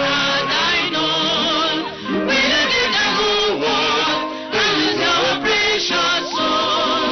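Gospel music with singing, the voices wavering and gliding in pitch over an instrumental backing.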